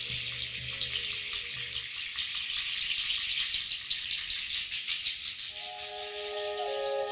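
Meditative background music led by a shaken rattle, a dense steady rustle. A low drone under it fades out about two seconds in, and a few long held tones come in near the end.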